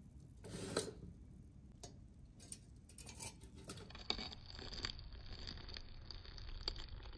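Light handling sounds: a few scattered small clicks and knocks with soft rustling, the sharpest about a second in. A faint steady high whine comes in about four seconds in.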